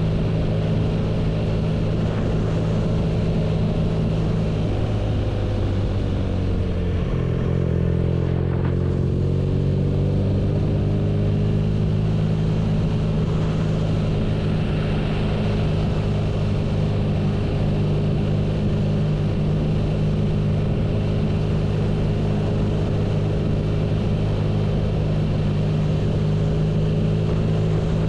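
BMW R nineT's boxer twin running steadily as the motorcycle is ridden. The engine note drops between about five and seven seconds in, then holds steady again.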